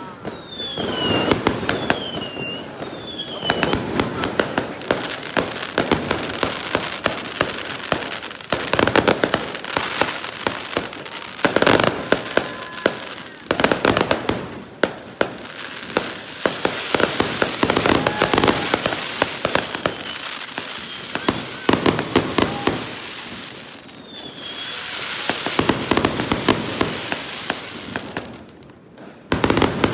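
Fireworks going off without a break: dense rapid bangs and crackling, with short falling whistles near the start and again about three-quarters of the way through.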